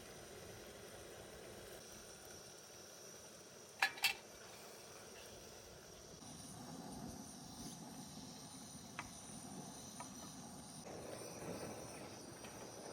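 Quiet outdoor background with a faint steady chirring like insects. Two sharp clicks a quarter second apart sound about four seconds in. From about six seconds a soft low rustling of handling comes in, with a few faint ticks.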